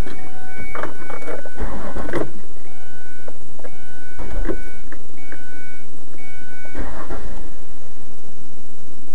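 Ford Escape V6 being cranked in short bursts with the fuel pump relay pulled, so it turns over without starting; this relieves the fuel-line pressure. A dashboard warning chime beeps repeatedly throughout.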